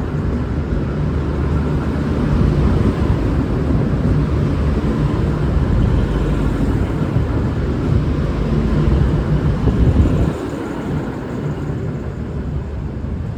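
Diesel engines of a departing V/Line VLocity diesel multiple unit running under power, a steady heavy rumble that drops away sharply about ten seconds in.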